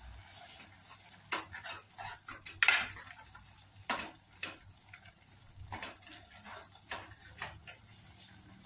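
Steel ladle stirring a thick masala paste in an aluminium pot, scraping and clinking against the pot's sides and bottom in irregular strokes. The loudest scrape comes about two and a half seconds in.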